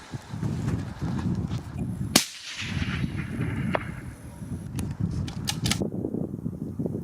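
A single shot from a suppressed Tikka T3 bolt-action rifle in .260 Remington, about two seconds in, with a short echo after it. A few sharp clicks follow near the end.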